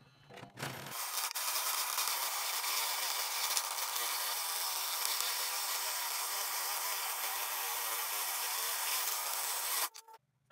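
Scroll saw cutting a round disc out of a thick wooden block: a steady sawing noise that starts about a second in and stops abruptly near the end as the disc comes free.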